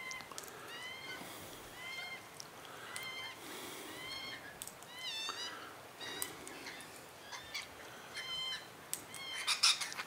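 Crimson rosellas calling: many short, repeated notes, each rising and falling, with a few sharp clicks among them and a louder, harsher burst near the end.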